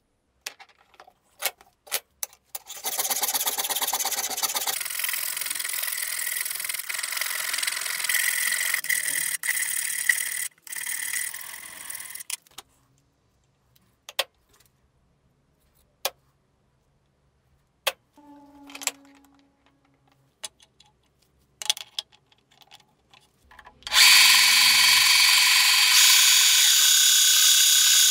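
A string of workshop sounds on a solid metal bar: a steady rasping machine noise for several seconds, then a few separate sharp taps, then, about four seconds before the end, a drill press starting to drill into the bar, a loud steady whine of the spindle with the cutting noise of the bit.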